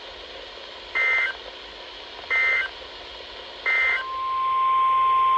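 Emergency Alert System end-of-message code: three short warbling two-pitch data bursts, about a second and a half apart. After the third burst a steady single-pitch alert tone fades in, the NOAA Weather Radio 1050 Hz warning alarm tone that opens the next alert.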